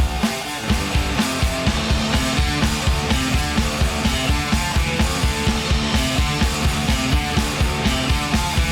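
Upbeat rock background music with a steady, even drum beat and guitar.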